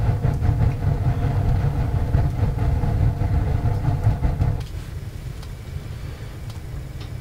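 Romantical wood stove burning hard: a steady low rumble of fire and draft in the firebox, dropping to a quieter rumble about four and a half seconds in.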